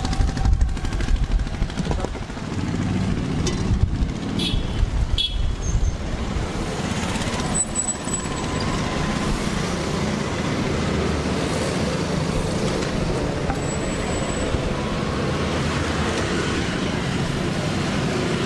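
Outdoor roadside street noise: steady traffic rumble, with a few short sharp clinks in the first several seconds.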